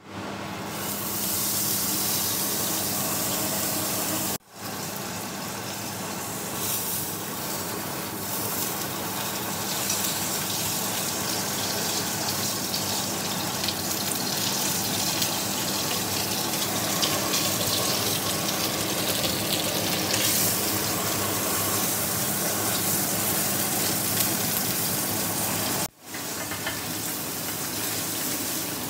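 Whole sea bass frying in hot oil in a pan: a steady sizzle, cut off briefly twice, about four seconds in and near the end.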